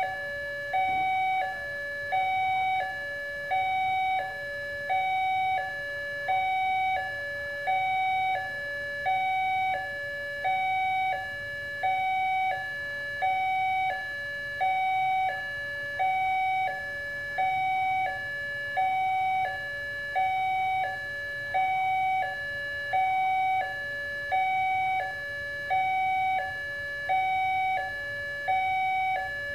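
Railway level-crossing warning alarm from the loudspeaker on the crossing-signal pole: an electronic two-tone high-low chime repeating about once a second, sounding while the red lamps flash and the barrier is down to warn that a train is coming.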